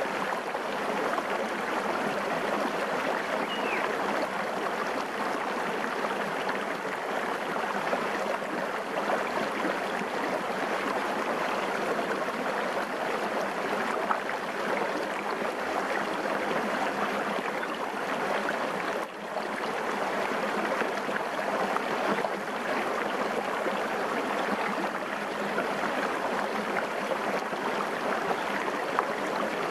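Shallow forest stream running over rocks, a steady rushing and rippling of water that dips briefly about two-thirds of the way through.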